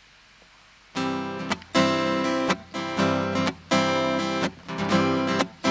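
Acoustic guitar strumming chords in a steady rhythm, starting about a second in: the instrumental introduction to a hymn.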